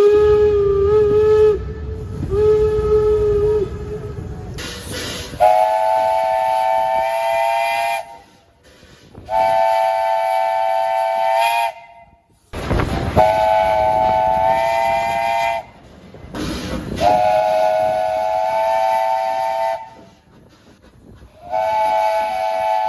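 Train horns: first a single-tone horn blown twice over the low rumble of a running train, then a multi-tone chord horn sounding about five blasts of two to three seconds each, separated by abrupt breaks.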